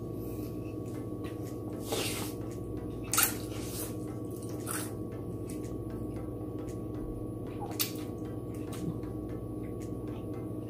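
Close-up eating sounds: slurping glass noodles and wet chewing, with a few short, sharp slurps about 2, 3 and 5 seconds in and again near 8 seconds, the one at 3 seconds the loudest. A steady low hum runs underneath.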